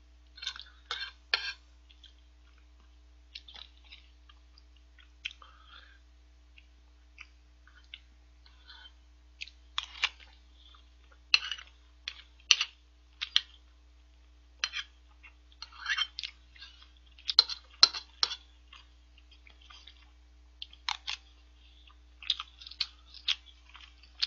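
Close-up eating sounds of curry and rice: irregular wet chewing and mouth smacks, mixed with metal spoon clicks and scrapes against the plate, over a faint steady low hum.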